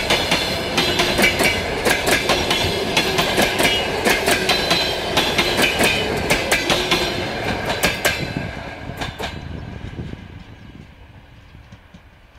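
Passenger coaches rolling past, their wheels clacking over the rail joints in a steady rhythm. About eight seconds in, the last coach goes by and the clatter dies away as the train recedes.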